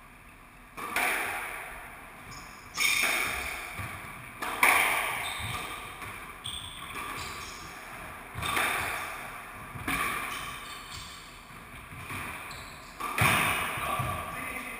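Squash rally: the ball is struck by the rackets and smacks off the court walls, a sharp hit every second or two, each one echoing in the enclosed court.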